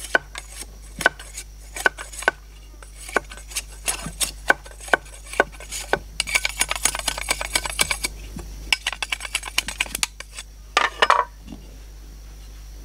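Large knife blade striking and shaving a strip of bamboo: sharp clacks about two a second, then a fast run of short scraping strokes, another quick series, and one longer scrape before the work stops near the end.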